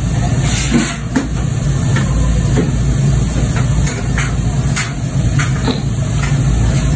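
A person eating noodle soup from a spoon: a few short slurps over a steady low background rumble.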